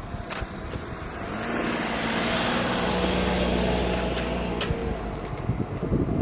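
A vehicle passing close by: its noise swells from about a second in, with a steady hum, then fades. Rumbling knocks follow near the end.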